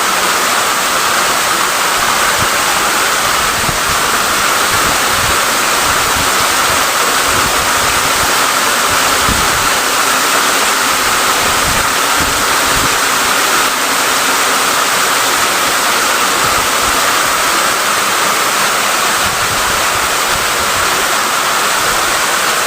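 Loud, steady rush of a tall waterfall close by, heavy water pouring and splashing, with irregular low thumps underneath.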